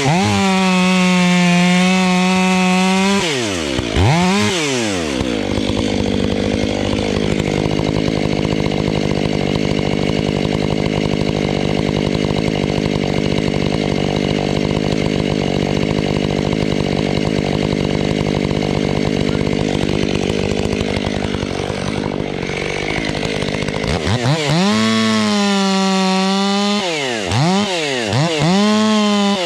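Ported, fuel-injected Stihl MS 500i two-stroke chainsaw held at full throttle, then cutting into wood under load for about twenty seconds. Near the end it is revved up and down in quick blips.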